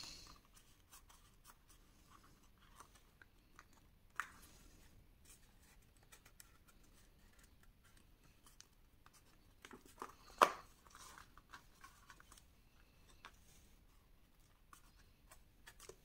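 Faint rustling and scraping of kraft cardstock pieces being handled and pressed together by hand during gluing, with a small click about four seconds in and a sharper tap about ten seconds in.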